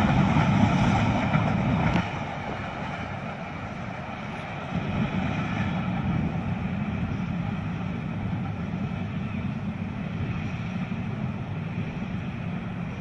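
A container freight train's wagons and brake van rolling over the track as the tail of the train passes and draws away. The noise is loud for the first couple of seconds, drops off sharply, then carries on as a lower, steady rumble.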